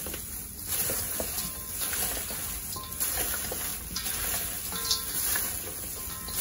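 Plastic-gloved hands tossing boiled chicken feet with salt in a stainless steel bowl: a steady wet rustling with many small clicks as the feet knock against each other and the bowl.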